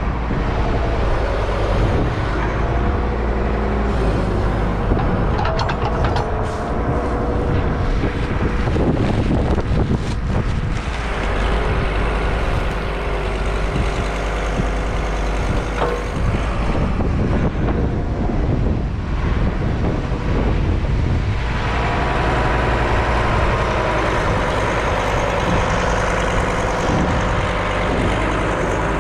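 Diesel engine of a farm loader running continuously, its note changing a few times as it works. A few short knocks are mixed in.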